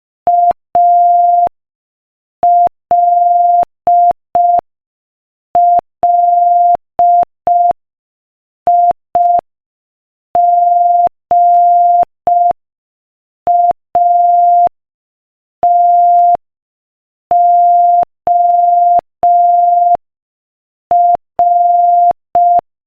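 Morse code sent as a single steady beeping tone at 5 words per minute: short and long beeps in groups, with longer pauses between letters, spelling out the word ALLIGATOR.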